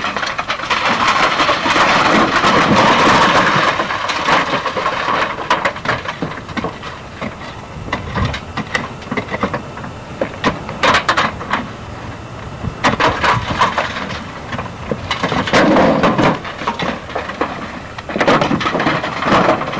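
Corrugated iron sheets being pulled and shifted: scraping and rattling sheet metal with scattered sharp knocks and bangs.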